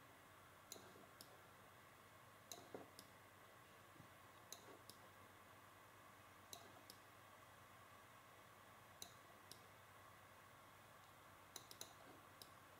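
Faint computer mouse button clicks, mostly in pairs about half a second apart, a press and a release, as the 3D models are dragged around. About six such groups, a couple of seconds apart, over quiet room tone.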